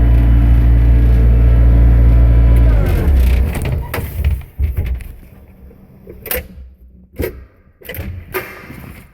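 A Bobcat 7753 skid steer's 46 hp four-cylinder non-turbo Kubota diesel running steadily, then winding down in pitch about three seconds in as it shuts off. Several separate knocks follow.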